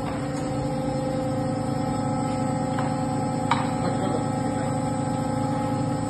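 Nectar 170-ton injection molding machine running with a steady hum, with a single sharp click about three and a half seconds in.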